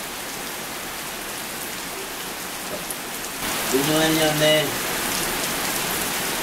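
Heavy monsoon rain falling steadily, growing louder about three and a half seconds in. Shortly after, a brief voice-like call stands out over the rain.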